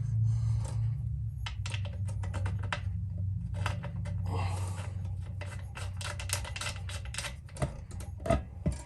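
Rapid clicking, tapping and scraping of a metal flush-mount ceiling light fixture and its wires being handled and fitted up to the ceiling box, with a few louder knocks near the end.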